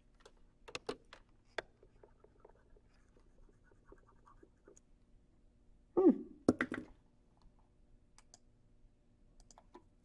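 Computer mouse and keyboard clicks: a few sharp clicks about a second in, faint scattered ticks, then a louder cluster of clicks around six seconds in.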